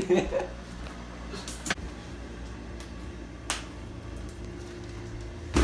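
A running kitchen appliance's motor hums steadily, with a few sharp knocks and a thud near the end.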